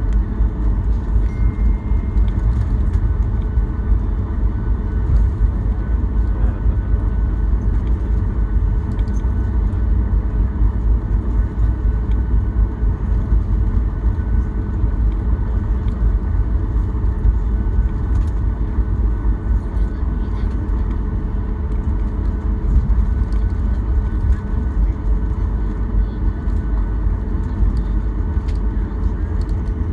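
Boeing 737 cabin noise while taxiing after landing: the engines at idle and the airframe rolling on the ground give a steady, loud low rumble with a faint hum above it.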